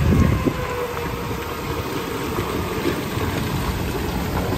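Jeep Wrangler JK's engine running under load at steady revs as it climbs a muddy hill, with a brief louder surge right at the start.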